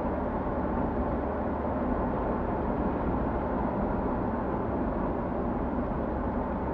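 Steady road and engine noise heard from inside a car driving along a highway, a constant low rumble with even tyre hiss.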